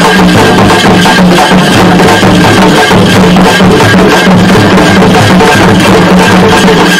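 Parai frame drums beaten in a fast, steady rhythm, very loud.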